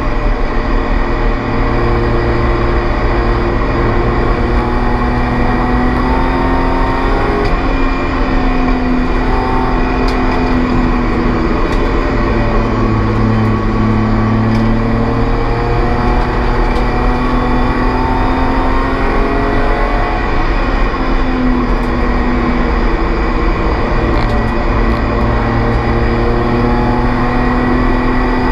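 BMW E36 Spec36 race car's engine running hard at racing speed, its pitch climbing and dropping several times as it accelerates and slows for corners, over steady road and wind noise.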